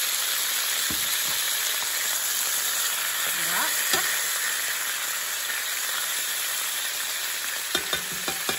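Pieces of beef chuck searing in very hot oil in a casserole pot: a steady sizzle, loud because the oil is hot enough to brown the meat rather than let it stew in its own water. A few short knocks come through, several of them near the end.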